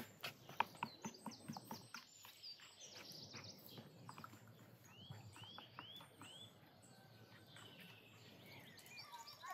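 Wooden spoon knocking against a wooden bowl as a wet mixture is stirred, in quick strokes for about the first two seconds and a few more a little later. Birds chirp throughout, with a run of four rising-and-falling notes about five seconds in.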